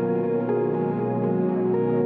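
Soft ambient background music: sustained synthesizer-like notes changing every half second or so.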